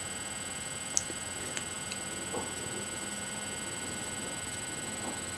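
Steady electrical hum and hiss, with a sharp click about a second in and a couple of faint ticks after it.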